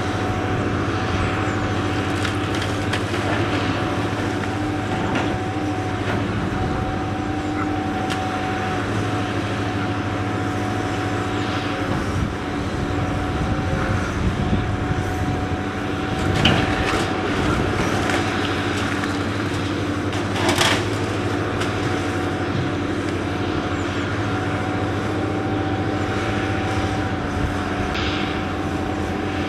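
Hydraulic excavator's engine running at a steady hum while it demolishes a brick building, with crunching and cracking of falling bricks and timber, and two louder crashes about halfway through and again some four seconds later.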